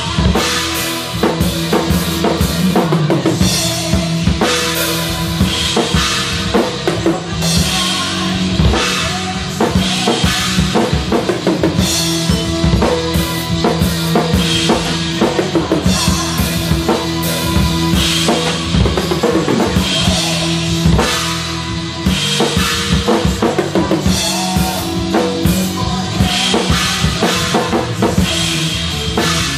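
Drum kit played hard in a progressive-metal song, heard from close behind the kit so the drums are loudest: busy kick drum, snare and cymbal hits over sustained notes from the rest of the music.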